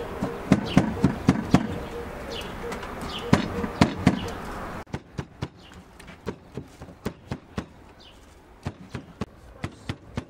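A meat cleaver chopping tomatoes and green peppers on a wooden cutting board, mincing them with sharp knocks of the blade on the wood. It comes in quick runs at first; about halfway in the background drops away and the chopping goes on steadily at about two or three strokes a second.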